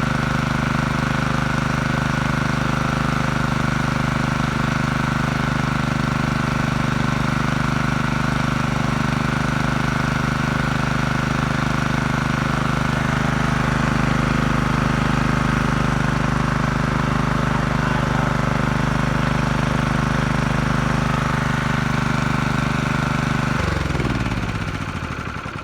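Generator's Honda GX160 single-cylinder four-stroke engine running steadily at constant speed after its carburetor has been cleaned. Near the end it is switched off, and its pitch falls away as it spins down to a stop.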